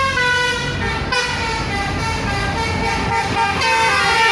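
Indonesian bus "telolet" multi-tone horn playing a tune: a run of held notes, each about half a second, stepping up and down in pitch, over the low rumble of traffic.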